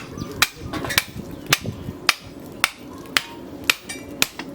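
Blacksmith's hand hammer striking steel rebar on an anvil in a steady rhythm, about two ringing blows a second, eight in all, as the bar is forged into a blade.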